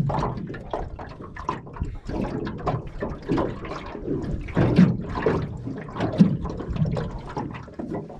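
Water sloshing and splashing close by in irregular surges.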